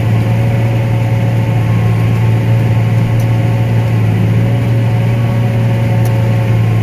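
Combine harvester running steadily while cutting corn, a constant low engine and machinery drone with a steady hum.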